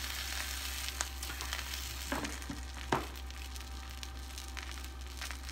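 Diced bacon with green onion, garlic and sugar sizzling in its own grease on an electric indoor grill's griddle plate, stirred with a spatula that knocks lightly on the plate a few times in the first three seconds.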